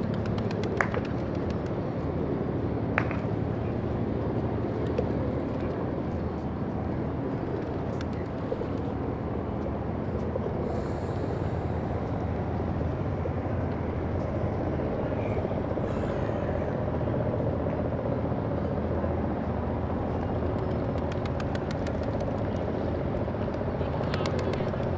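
An engine's steady low drone running without change, with a couple of small clicks in the first few seconds.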